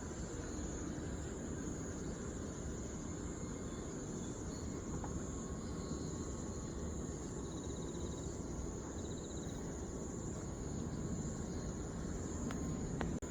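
Evening chorus of crickets: a steady, high-pitched trill that never stops, with two short chirping trills a little higher in the middle. Under it runs a low steady rumble, and there are two faint clicks near the end.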